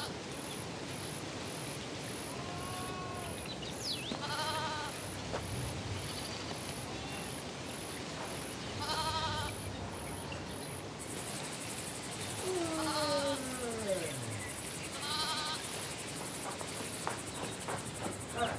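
Goats bleating, about half a dozen short calls spread out, with one longer call sliding down in pitch about two thirds of the way through, over crickets chirping in a steady pulse about twice a second that turns into a continuous trill partway through.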